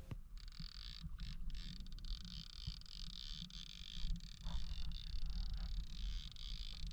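Uneven low rumbling of wind on the microphone with a steady faint hiss, from a small fishing boat drifting on open water.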